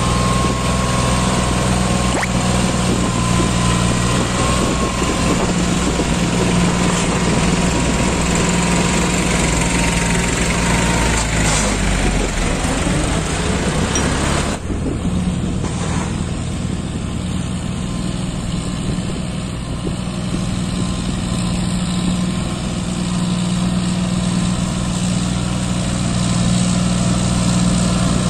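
John Deere tractor's diesel engine running steadily under heavy load, pulling a fully loaded trolley. About halfway through, the high hiss over the engine drops away suddenly.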